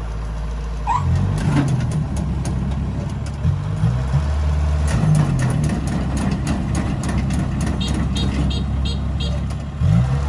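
Kubota DC60 combine harvester's diesel engine running under load, its pitch shifting up and down several times, with clatter from the machine. A run of about four short high beeps sounds near the end.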